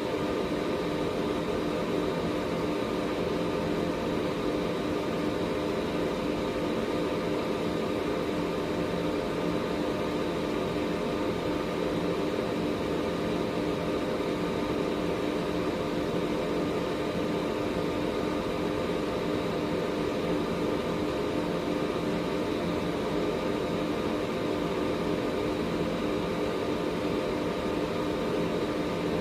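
Air purifier's fan running steadily: an even rush of air with a steady low hum and a faint high whine running through it.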